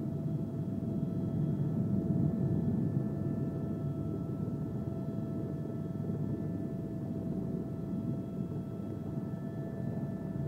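Turbine helicopter's engine and rotors running, heard from inside the cabin: a steady low rumble with a constant whine over it.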